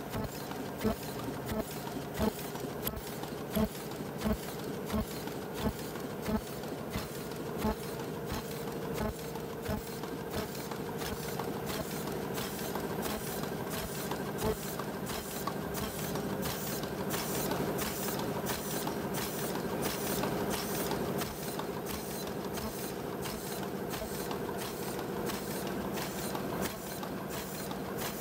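Paper cup making machine running: a steady mechanical hum with a regular clack a little more than once a second. After about eight seconds the clacks give way to quicker, lighter clicking and a louder whirr.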